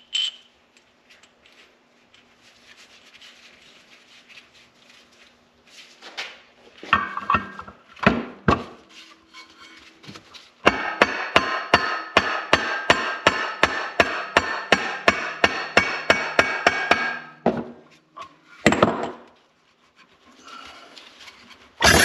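Hammer tapping on the metal of a 2005 Ski-Doo 550F's gummed-up secondary clutch to work it apart. A few single knocks come first, then a steady run of quick strikes, about four a second for several seconds, each one ringing.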